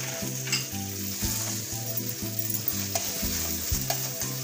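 Onions, ginger-garlic and green chillies sizzling in hot oil in a stainless-steel kadai, with a steel spatula scraping and clicking against the pan a few times as it stirs.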